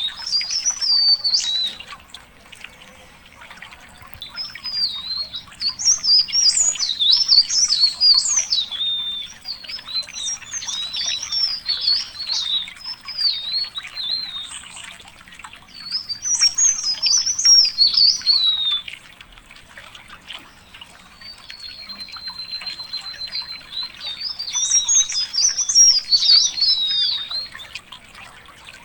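A songbird singing long, rapid, high-pitched warbling phrases, each a few seconds long, with short pauses between them.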